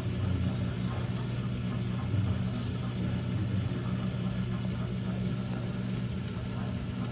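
Samsung dishwasher drain pump running with a steady hum as it pumps the water out; the freshly unclogged drain is draining okay.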